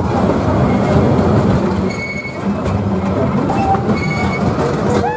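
Miniature park railway train running, with its carriages rattling and wheels clattering on the track. Two short high squeals come about two seconds in and again near four seconds.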